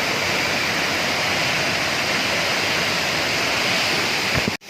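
Steady rushing of a waterfall, a dense even roar of falling water. Near the end it drops out abruptly for a moment at a cut.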